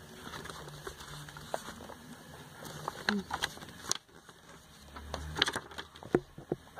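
Glossy paper catalog being handled: pages rustling and scattered small taps and clicks as the booklet is lifted and moved.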